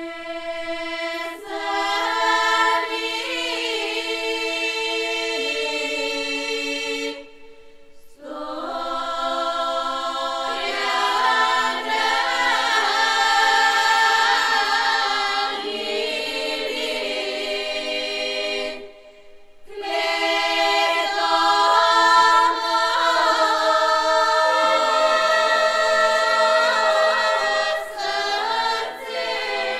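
Bulgarian folk choir singing a choral arrangement of a folk song in long phrases of held chords, breaking off briefly twice, about a quarter and two thirds of the way through.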